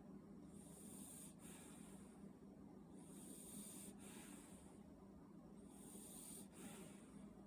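Puppy snoring softly in its sleep: faint, hissy breaths coming about every two and a half seconds, three of them.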